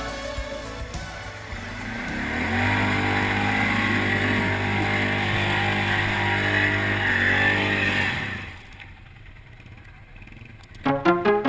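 Arctic Cat ATV engine under steady throttle as the quad drives through a mud hole, its revs climbing about two seconds in and holding, then falling off sharply about eight seconds in. Music comes in near the end.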